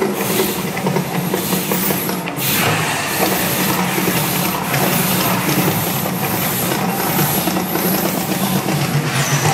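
Mirage volcano show: rows of gas fire jets on the lagoon blasting flame in quick bursts, a loud, dense rushing noise over a steady low rumble.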